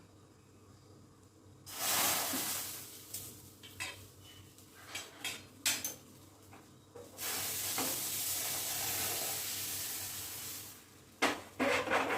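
Food sizzling in a hot pan, starting suddenly and fading over about a second, then a steadier sizzle lasting about three and a half seconds. Sharp clinks of a utensil against the pan come in between and in a quick cluster near the end.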